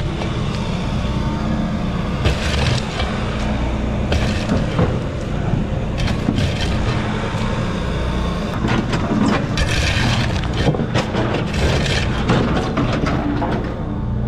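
Flat square shovel scraping and scooping through gravel and broken rubble, several separate gritty scrapes. Under it an engine runs steadily.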